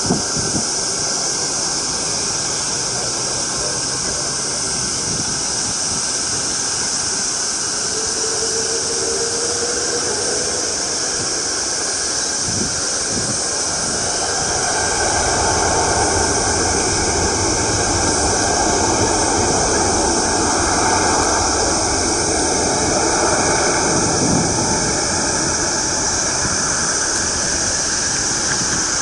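Airbus A380-861's four Engine Alliance GP7270 turbofans running on the runway, then spooling up to takeoff thrust about halfway through as the takeoff roll begins: the jet noise grows louder and fuller and holds there. A steady high hiss runs underneath throughout.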